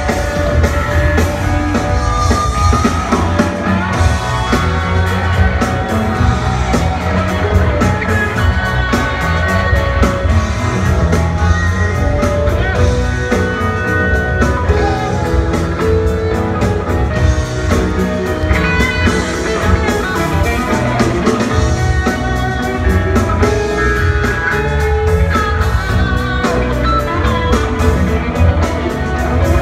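Live rock band playing a funk song: electric guitar over steady drums and a heavy bass line, heard from the seats of a large arena.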